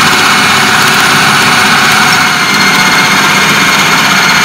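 Idealife IL-222 food processor's 800 W electric motor running at a steady high whine, its chopper blade grinding beef and seasonings into a smooth meatball paste.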